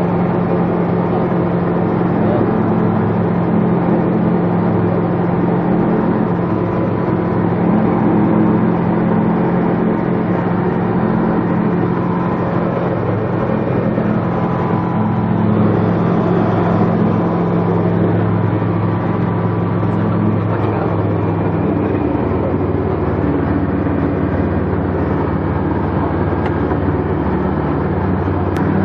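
Roko Aero NG-4 light sport aircraft's piston engine and propeller droning steadily in flight, heard inside the cockpit. The engine note shifts slightly about three-quarters of the way through.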